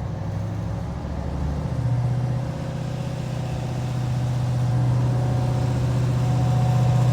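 Diesel engine and cooling fans of a Class 755/3 Stadler FLIRT bi-mode's power pack working hard as the train pulls away. It is a steady low drone that steps up about two seconds in and keeps growing louder.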